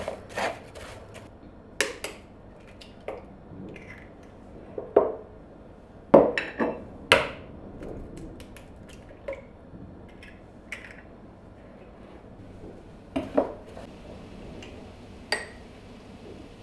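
Scattered sharp taps, knocks and clinks of a spoon, glasses and eggs against a plastic mixing bowl as dough ingredients are added, the loudest cluster about six to seven seconds in.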